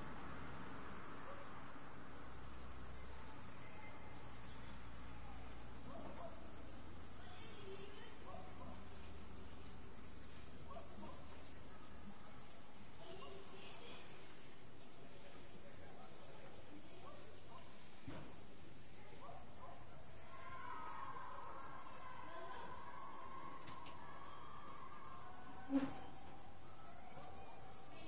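Crickets chirring: a steady, high, unbroken trill. A single sharp knock comes near the end.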